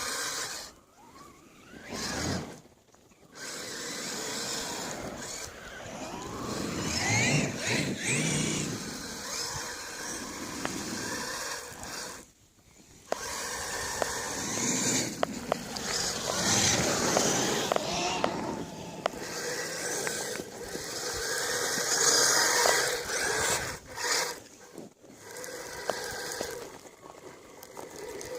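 Kyosho Blizzard radio-controlled tracked snow vehicle running: its electric motor and gearing whine in bursts that rise and fall in pitch with the throttle. There are brief stops, the clearest about twelve seconds in.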